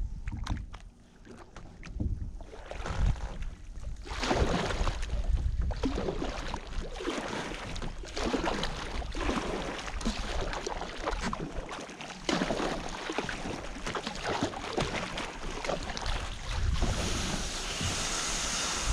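Water splashing and swishing around a sea kayak's hull with repeated paddle strokes about once a second, over low wind rumble on the microphone. Near the end it gives way to a steady rustling hiss as the plastic hull is dragged over dry totora reeds.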